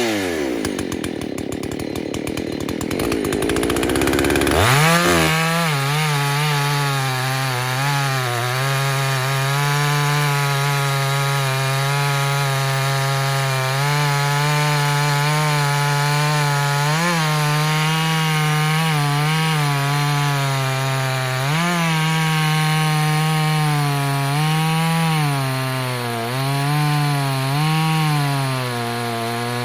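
Husqvarna 281 two-stroke chainsaw with a 24-inch bar. It runs at low, uneven revs for the first few seconds, then opens to full throttle and holds a steady high pitch while cutting hardwood. The pitch briefly rises several times.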